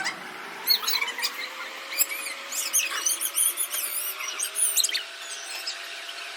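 A rapid series of short, high-pitched squeaks and chirps with wavering pitch, densest in the middle few seconds, over a faint steady tone that slowly rises in pitch.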